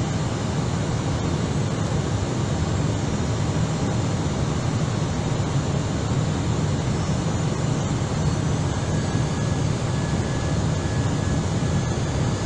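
Airbus A319 cockpit noise on approach: a steady rush of airflow and engine noise, deep and even, with no change in level.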